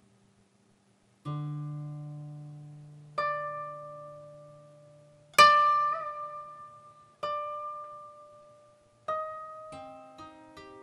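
Solo koto plucked with finger picks: after about a second of silence, single notes ring out and fade about two seconds apart, the loudest one about halfway through, then the notes come quicker near the end.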